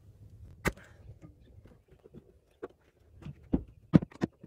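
Scattered sharp clicks and knocks of hands and parts being worked in a car's engine bay while tight hoses are tugged loose: one click about two-thirds of a second in, and a quick cluster of several near the end, the loudest among them.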